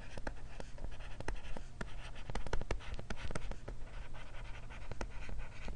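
Stylus writing on a tablet screen: many quick taps of the tip with light scratching as words are handwritten.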